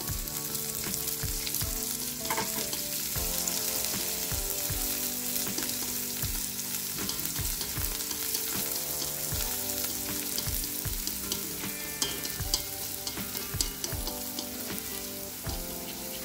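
Minced garlic, chili and scallions sizzling in hot oil in a wok, stirred with wooden chopsticks that knock against the pan now and then.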